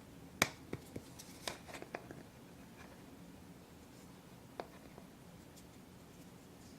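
A handful of light, sharp clicks and taps from craft supplies being handled on a table: a quick cluster in the first two seconds, the loudest about half a second in, then two more about four and a half seconds in. A low steady hum sits underneath.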